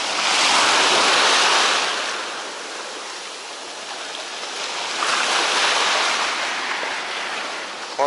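Sea waves breaking and washing around the shallows in a light storm swell. Two surges come in: one in the first two seconds and another from about five seconds in, each easing off as the wash drains back.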